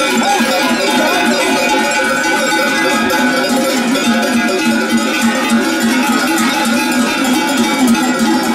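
Many large cowbells on a herd of walking cattle, clanging together in a dense, continuous ringing.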